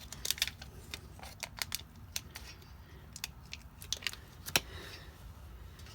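Irregular sharp clicks and crinkles of handling, the loudest about four and a half seconds in, as more steel-reinforced epoxy putty is taken from its stick and wrapper.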